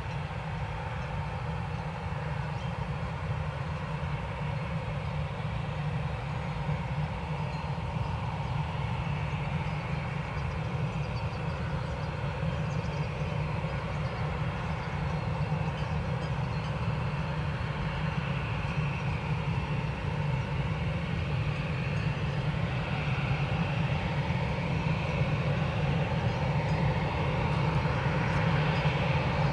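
Airbus A319-112's twin CFM56 jet engines running at taxi power as the airliner rolls slowly on the ground: a steady whine over a low rumble. It grows gradually louder, and the pitch of the whine shifts in the last few seconds as the aircraft turns and closes in.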